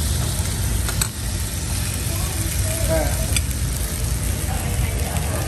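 Chopped chicken and cooked rice sizzling in butter in a hot frying pan, with a metal spoon stirring and clinking against the pan a couple of times. A steady low rumble runs underneath.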